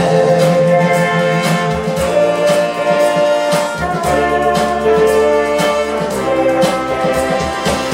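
Instrumental break of a pop song: a held melodic lead with backing chords over a steady drum beat, with no vocals.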